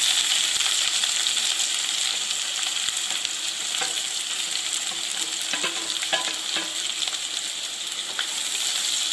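Sliced onions dropped into hot ghee and oil with whole spices, bursting into a loud, steady sizzle as they hit the fat. About four seconds in, a wooden spatula starts stirring them in the nonstick pan, with a few light knocks and scrapes over the frying.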